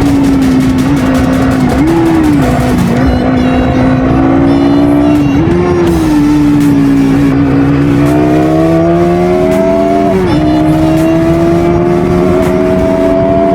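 Bajaj Pulsar NS200's single-cylinder engine running through its stock exhaust, its pitch rising and falling. Short rises come early on, then a slow climb drops sharply about ten seconds in before it climbs again.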